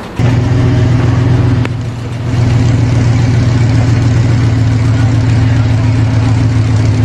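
An engine running steadily with a low, even hum, easing off briefly about two seconds in.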